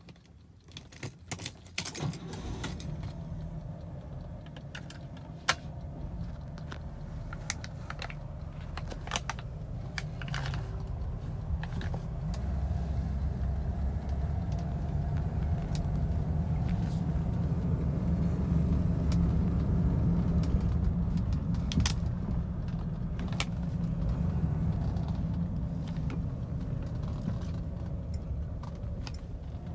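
Cabin sound of a 1975 Rolls-Royce Silver Shadow's V8 driving: a low steady rumble that grows louder about twelve seconds in. The keys on the ignition key ring jangle and click now and then.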